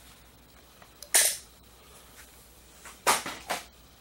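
Sharp electrical snaps as two windshield wiper motor leads are touched together in a dead short: one about a second in, then two or three in quick succession near the end.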